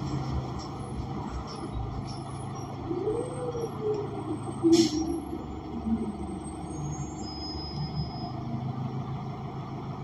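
Cabin sound of a 2020 New Flyer XN35 transit bus with its Cummins Westport L9N natural-gas engine and Allison transmission running: a steady low drone, with a faint whine rising and falling about three seconds in. A single short, sharp sound comes just before five seconds in.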